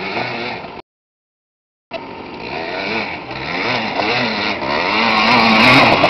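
Yamaha Blaster ATV's two-stroke single revving up and down as it spins donuts, growing louder as it passes close. The sound cuts out completely for about a second near the start.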